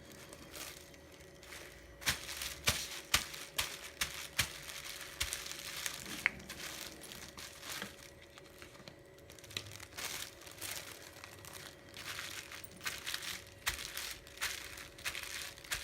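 Plastic bubble wrap crinkling and crackling as it is handled, pressed into paint and dabbed onto paper, in irregular clusters of sharp crackles, busiest about two seconds in and again near the end.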